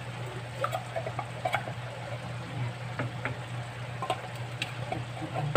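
Light ticks and taps over a steady low hum, as condensed cream of chicken soup is shaken out of a tin can into a glass bowl of water.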